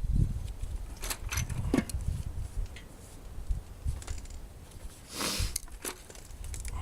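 Scattered metallic clinks and low knocks of a Honda D16Y8 cylinder head and its parts being handled as the head is taken off the block, with a brief rushing scrape about five seconds in.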